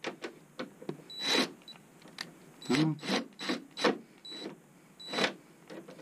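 DeWalt 20V cordless drill running in several short bursts with a brief high whine, backing out a hard-to-reach quarter-inch screw through a long extension. Clicks and knocks of the bit and extension come in between the bursts.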